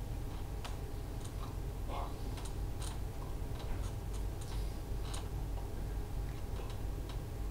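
Steady low hum of room tone with faint, irregular clicks and taps scattered through it.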